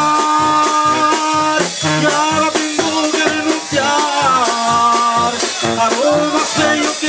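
Live tamborazo brass band playing: brass holding melody notes over a tuba bass line, driven by a steady beat on the tambora bass drum and cymbal.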